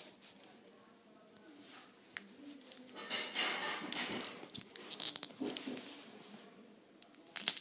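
A small plastic package of Zippo replacement flints being handled and picked open by hand: rustling and crinkling with short clicks, busiest in the middle.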